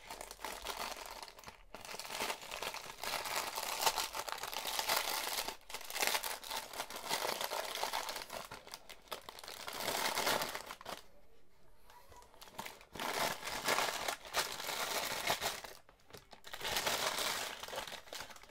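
Crinkly white packaging wrap being handled and pulled open by hand, crinkling in bouts with brief pauses and a longer lull a little past halfway.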